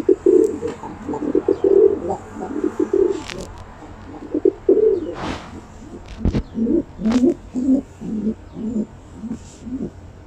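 Domestic pigeon cooing: a run of low, pulsing coos repeated throughout, with a few sharp knocks in between, one a low thump a little past the middle.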